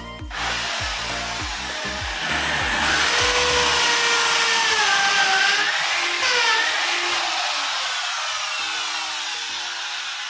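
Electric drill running as it bores a hole, its motor whine sliding up and down in pitch, over background music.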